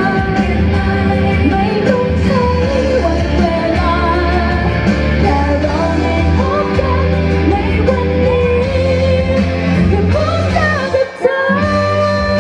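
A woman singing a Thai pop song live into a handheld microphone over amplified instrumental accompaniment. The music dips out briefly about a second before the end.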